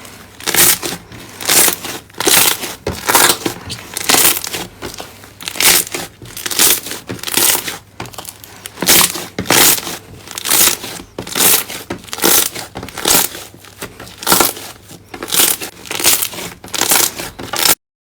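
Slime being squeezed and pressed by hand, giving crackling, crinkly crunches about once a second. The sound cuts off suddenly near the end.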